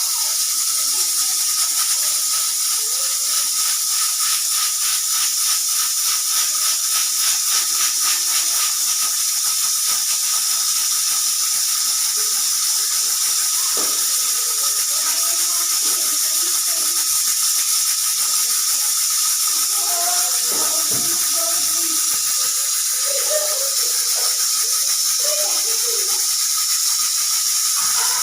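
Pressure cooker venting steam with a steady hiss and a thin steady tone, with a fast fluttering rattle for the first several seconds, but never giving its whistle: the cooker is not building up enough pressure to whistle.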